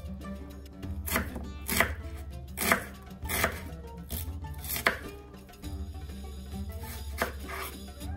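Knife cutting through onion on a cutting board, one slow stroke about every second, with a short pause in the middle. A low steady hum runs underneath.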